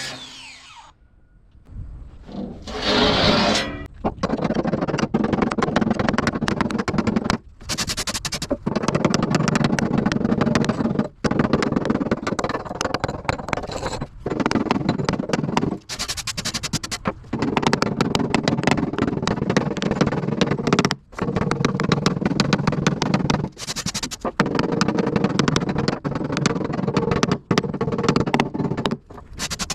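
Welding arc crackling and sizzling in runs of a few seconds with short breaks between them, as weld beads are laid on a steel truck fender.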